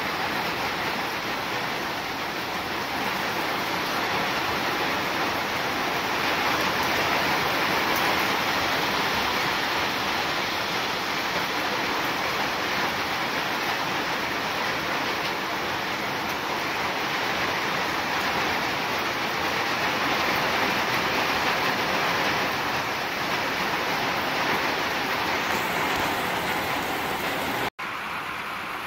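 Steady hiss of heavy rain falling. Near the end it cuts out for an instant and carries on a little quieter.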